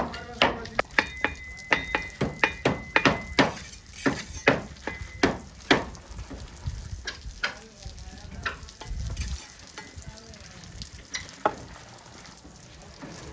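Bricklaying trowel work: a quick run of sharp taps and scrapes of a steel trowel on brick and mortar, with a brief metallic ring, thinning out to scattered taps about halfway through.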